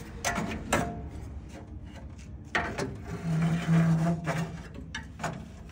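A mechanic working by hand in a truck's engine bay while fitting a new radiator: a few sharp knocks and scraping of parts. A short rubbing stretch comes about two and a half seconds in, with a brief low hum around three to four seconds.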